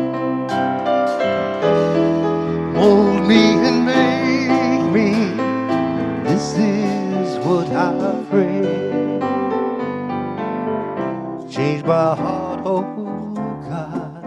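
Live worship-band music led by an electric keyboard playing held chords, with a wavering melody line above them.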